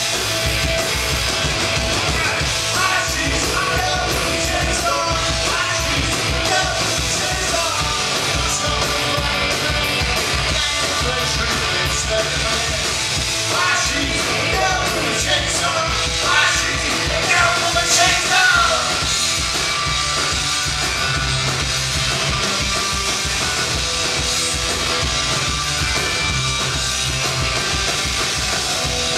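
A live punk rock band plays loudly on electric guitars, bass and drums. A male voice sings through roughly the first two-thirds, and then the band plays on without vocals.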